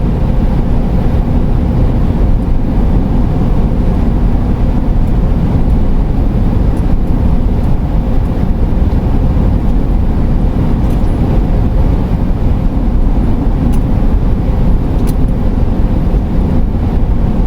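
Steady road and engine noise heard from inside the cabin of a 2008 Pleasure-Way Ascent camper van driving at a constant speed: a dense, even low rumble with no change in pitch.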